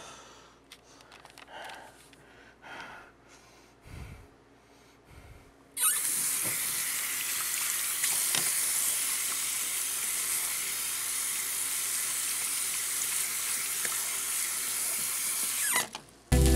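Bathroom sink tap turned on about six seconds in, water running steadily into the basin and over hands being rinsed under it, then shut off shortly before the end. Before the water, only faint small handling sounds.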